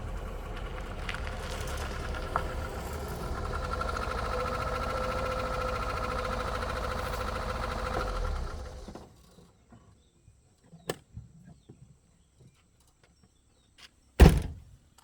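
A vehicle engine running steadily, then switched off about nine seconds in. A few light clicks follow, then one loud thunk near the end.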